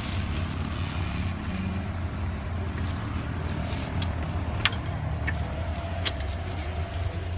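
Off-road rock buggy engine idling steadily, with a few sharp clicks or knocks about halfway through.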